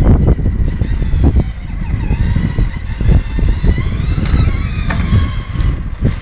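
Battery-powered ride-on toy Jeep driving over concrete: a continuous low rumble from its hard plastic wheels and electric drive motors, with a few jolts along the way.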